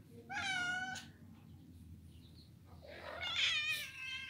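Domestic cats meowing twice: a short meow about half a second in, then a longer, wavering meow near the end.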